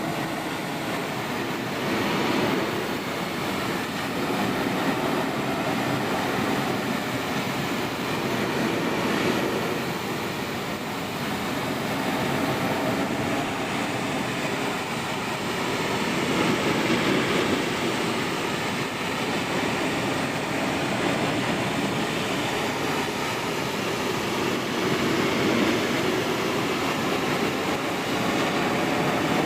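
Pressure washer running, its water jet spraying onto wooden deck boards in a steady noisy hiss that swells and eases a little as the wand moves.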